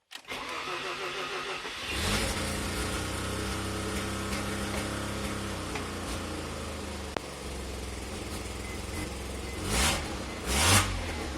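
Mazda RX-7's 13B twin-rotor rotary engine cranking for about two seconds, catching, and idling, then revved briefly twice near the end. A small vacuum leak at the lower intake manifold's ACV block-off plate gives the idle a misfire-like sound.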